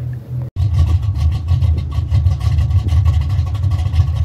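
Car engine idling with a fast, even exhaust pulse, cutting in abruptly about half a second in.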